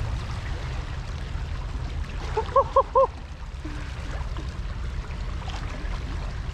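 Steady low rush of wind and fast-moving water at the shoreline. About two and a half seconds in, three short, quick, squeaky chirps sound in a row.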